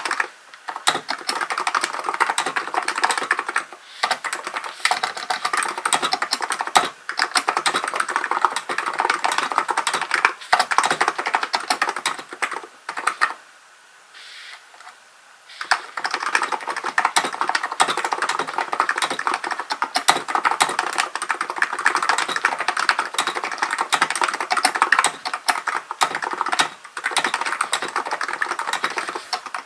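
Continuous fast typing on a Hansung GK898B electro-capacitive keyboard: a dense run of keystrokes with brief breaks, and a pause of about two seconds midway.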